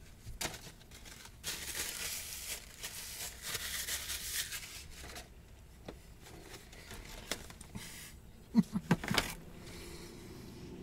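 Paper fast-food wrapping rustling and crinkling for a few seconds, with scattered small clicks and a short cluster of sharp knocks near the end.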